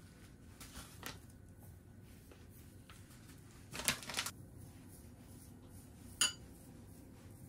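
Soft rustling of a packet of shredded nori as it is tipped and the strands are sprinkled over bowls of rice, with a louder rustle about four seconds in. A single sharp clink with a brief ring near the end.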